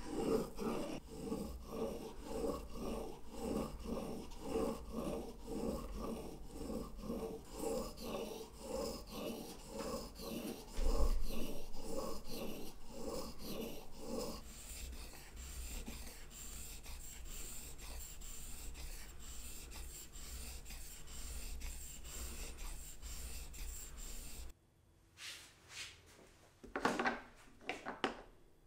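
A steel chisel blade being honed back and forth on a combination whetstone, a rhythmic scraping of about two strokes a second with one louder knock about eleven seconds in. After about fourteen seconds the strokes blend into a softer, steadier rubbing, which stops suddenly near the end and is followed by a few light knocks.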